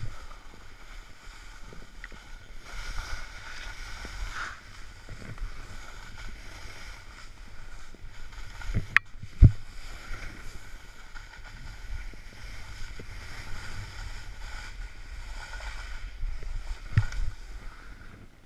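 Snowboard sliding and carving over snow, a steady scraping hiss with wind on the microphone. A sharp knock and then a thump come about nine seconds in.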